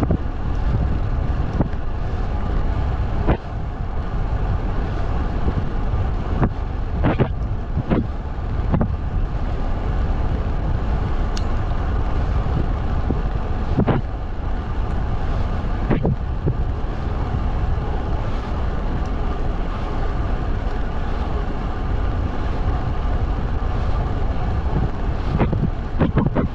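Riding noise from a road bike filmed on an action camera: a steady low rumble of wind on the microphone and tyres on the road, broken by a dozen or so sharp knocks.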